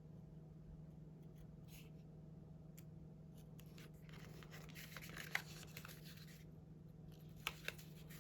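Faint scraping and ticking of an X-Acto craft knife cutting the punch holes out of sticker-covered paper on a cardboard backing. There is a longer stretch of scraping in the middle and a couple of sharp ticks near the end.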